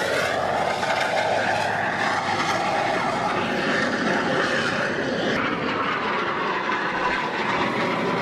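Airplane engine noise: a steady, loud rush of a fixed-wing aircraft in flight, its pitch drifting slowly.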